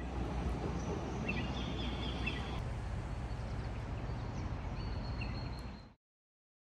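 Outdoor ambience: birds chirping over a steady low rumble. The calls come about a second in and again near the end, and the sound cuts off abruptly about six seconds in.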